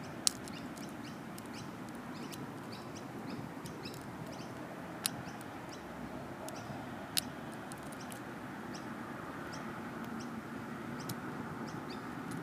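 Lock picks clicking against the metal of a brass padlock: three sharp clicks, just after the start, about five seconds in and about seven seconds in, among fainter ticks. Steady outdoor background noise and faint bird chirps run underneath.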